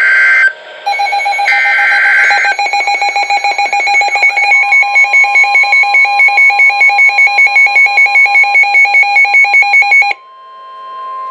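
NOAA Weather Radio emergency alert for a severe thunderstorm warning: two buzzy screeches of SAME header data, then a weather radio receiver's electronic alarm beeping rapidly. About four seconds in, the steady 1050 Hz warning tone joins it, and it carries on after the beeping stops near the end.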